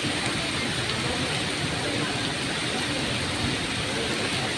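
Rain falling steadily on wet paving, an even hiss with no breaks.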